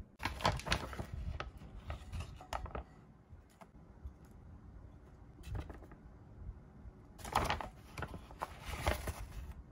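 Plastic bags of frying powder and pancake mix crinkling as the powder is spooned out into a stainless steel bowl. The rustling comes in two bouts, one at the start and one near the end, with a few light clicks between them.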